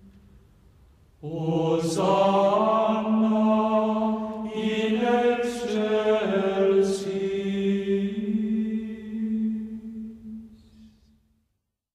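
Slow, chant-like singing with long held notes, starting about a second in and fading out near the end.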